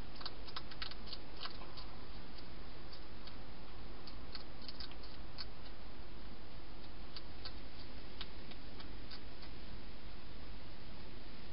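Wild hedgehog chewing dry food: irregular runs of small, sharp crunching clicks over a steady hiss.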